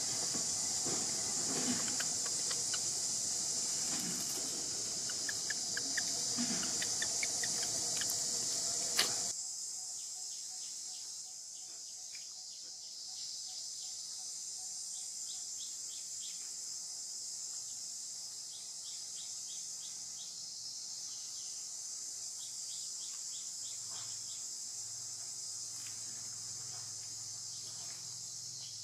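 Steady high-pitched drone of insects, with short faint chirps now and then. A broader, lower background noise cuts off abruptly about nine seconds in, leaving the insect drone on its own.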